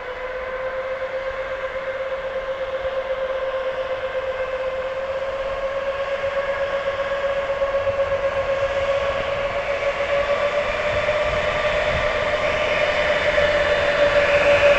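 EP2K passenger electric locomotive pulling away with a train. Its steady whine slowly rises in pitch and grows louder as the train gathers speed.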